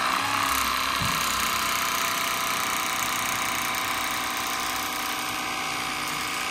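Electric fillet knife running steadily, its motor buzzing as the reciprocating blades cut along a bowfin fillet.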